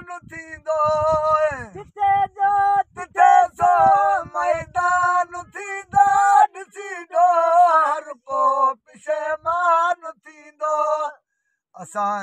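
A man singing a Sindhi molood, a devotional song, unaccompanied, in long phrases with wavering, ornamented held notes and short pauses for breath.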